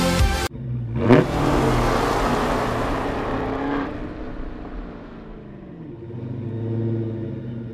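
Car engine revving sound effect: a sharp rising rev about a second in, then a rushing whoosh that fades over a few seconds, giving way to a lower engine hum that swells and eases.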